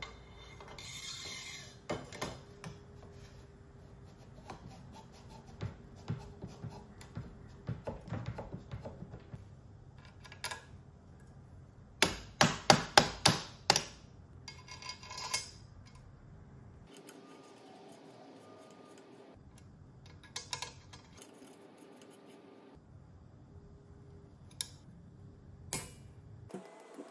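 Metal rifle parts being fitted: scraping and light clicks as a Geissele MK4 handguard is slid over an AR-15 barrel and worked into place, then a quick run of about six sharp taps from a brass-and-nylon-faced hammer about twelve seconds in, with a few scattered taps and clicks later.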